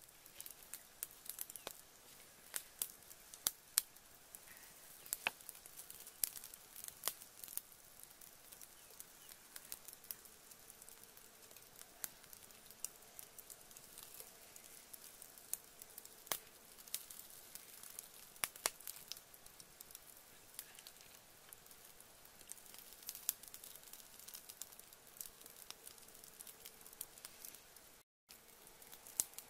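Charcoal and wood fire crackling in a clay brazier, with scattered sharp pops.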